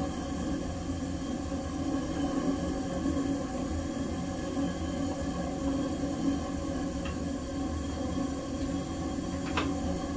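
Steady mechanical hum with several held tones, and two faint metallic clicks in the last few seconds as a camshaft is eased into the engine block's cam bearings.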